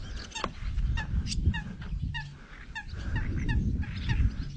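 Wind rumbling on the microphone, with a string of short, high chirps several times a second.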